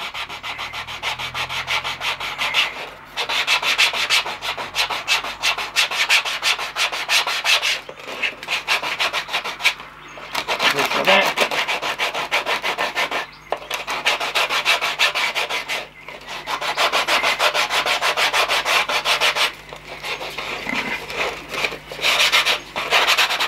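Hand sanding of the super-glued end of a 30 thou plasticard cylinder with a sanding strip: rapid back-and-forth scratching strokes in runs of a few seconds, broken by short pauses.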